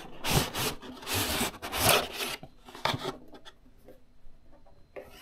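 Cardboard packaging rubbing and scraping as the box is pulled open, in four or so scraping strokes during the first three seconds, then quieter.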